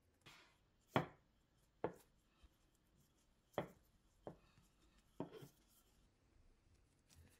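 Bread dough being pressed and rolled with a wooden rolling pin on a hard work surface: about six sharp knocks and taps, spaced irregularly, the loudest about a second in.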